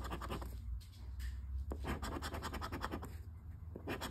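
Scratch-off lottery ticket being scraped with a hand-held scratcher: quick, repeated short strokes rubbing off the coating, several a second, with a couple of brief pauses.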